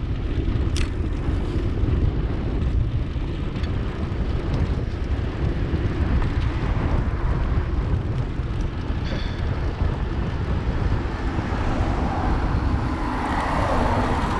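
Steady wind rumble on the microphone of a camera riding along on a moving bicycle, with a car passing close by near the end, its noise swelling up.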